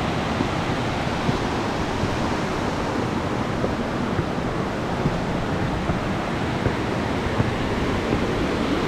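Mingo Falls pouring: a steady, even rush of falling water.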